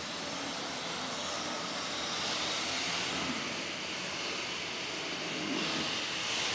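Model train locomotive running on a tabletop layout's track: a steady, hiss-like whir that swells a little twice.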